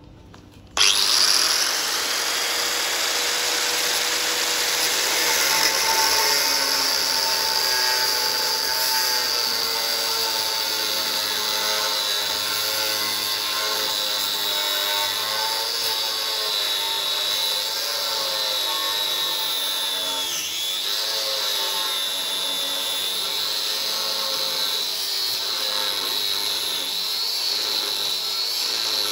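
Angle grinder with a thin cut-off disc starting up about a second in and cutting through steel angle iron: a steady high whine over a grinding hiss, the pitch sagging briefly about two-thirds of the way through as the disc is loaded into the cut.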